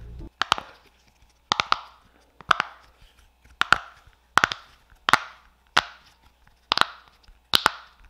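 Silicone pop-it fidget toy held close to the microphone, its bubbles pressed in one after another: sharp pops about once a second, often two in quick succession.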